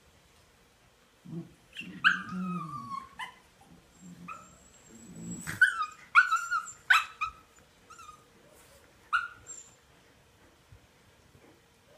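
Puppies play-fighting: low growls mixed with a string of short high-pitched yips and whines that fall in pitch, dying away about three-quarters of the way through.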